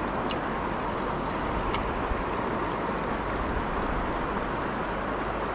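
Steady rush of shallow river water running over the rocks of a riffle.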